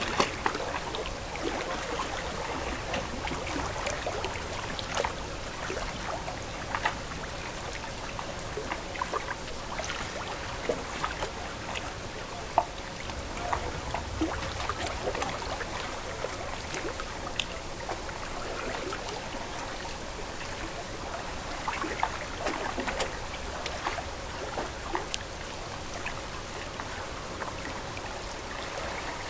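Lake water lapping and trickling: a steady wash with many small, irregular splashes and drips.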